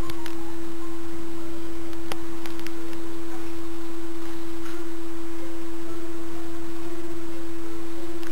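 A single steady pure tone, a held electronic note at the end of background music, sounding without change in pitch or loudness, with a few faint clicks now and then.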